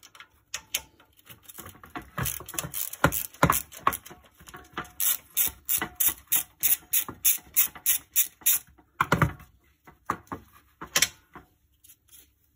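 Socket ratchet wrench clicking in a quick, even run, about four clicks a second, as a bolt is unscrewed from a steel bicycle fender, followed by a couple of louder knocks near the end.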